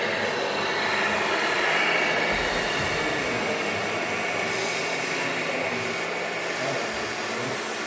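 Radio-controlled scale model trucks and machinery running: a steady mechanical noise with faint held whining tones.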